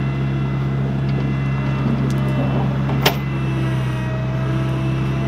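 Bobcat skid steer's engine idling steadily, with light clinking as a tow chain is hooked to its bucket and one sharp metallic clank about three seconds in.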